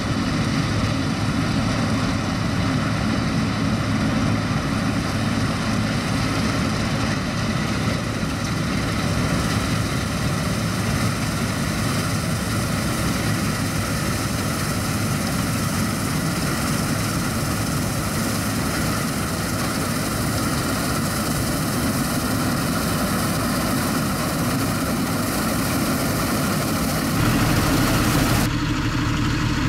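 Claas Lexion 460 combine harvester running steadily as it cuts oilseed rape, its engine and threshing machinery making a continuous drone. Near the end the sound changes to a JCB Fastrac 3230 tractor's Cummins engine running.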